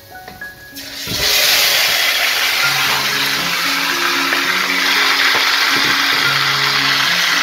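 Marinated duck pieces hitting hot oil and fried garlic in a steel pot, setting off a sudden loud sizzle about a second in that then holds steady as the meat sears.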